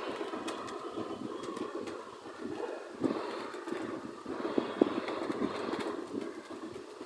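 Robot sound effect: dense mechanical clattering and grinding with scattered clicks, and a sharp knock near the middle.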